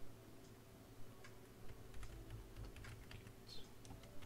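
Faint typing on a computer keyboard: scattered, irregular keystrokes.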